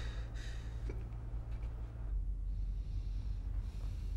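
Low steady hum, with a few faint breaths near the start from a woman crying quietly.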